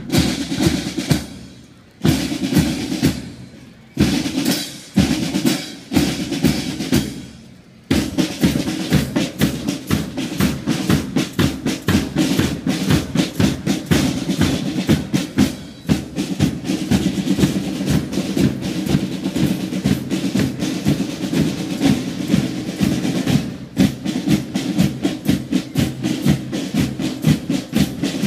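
Marching band drum section with snare and bass drums. For about the first eight seconds it plays heavy accented strikes about once a second, each dying away; then it breaks into continuous rapid drumming that runs on.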